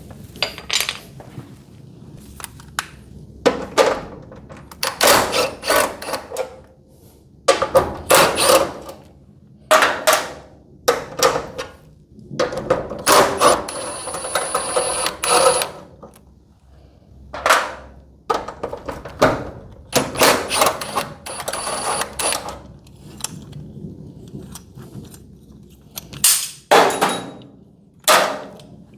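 Irregular metallic clanks and knocks, with a few longer rattling stretches, as a garage door hinge and its hardware are worked loose and fitted with hand tools.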